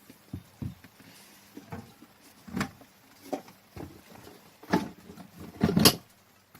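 Irregular knocks and clunks of things being handled and set down, several short hits spread out, the loudest a pair near the end.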